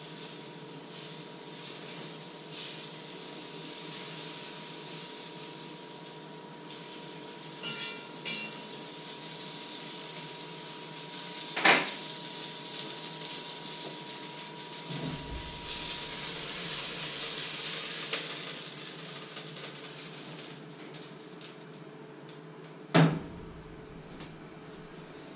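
Food sizzling in a pan on an electric hob, the hiss swelling and fading, with two sharp metallic clanks of pots or utensils, about halfway through and near the end.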